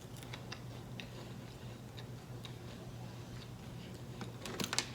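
Faint, irregular light clicks and ticks over a low steady hum, with a short cluster of louder clicks near the end.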